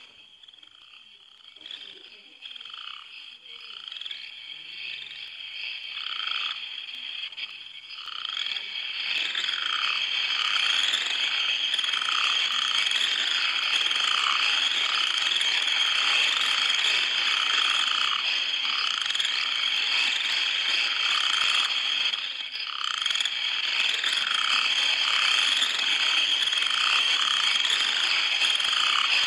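Night chorus of frogs croaking over a steady high insect trill, swelling over the first ten seconds and then holding steady.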